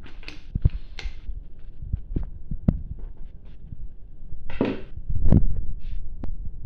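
Kitchen handling sounds: a scattered series of dull thumps and sharp clicks as metal bowls, a glass bowl and a wire strainer are moved about on the table, with a scraping rustle about four and a half seconds in followed by the heaviest thump.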